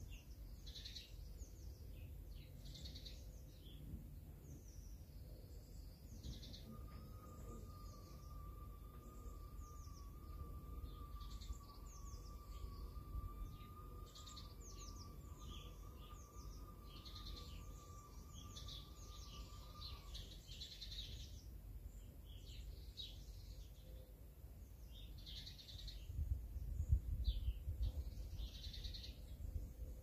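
Songbirds chirping and calling with many short, high calls, over a low rumble like wind on the microphone that swells near the end. A faint, slightly wavering steady tone runs through the middle part.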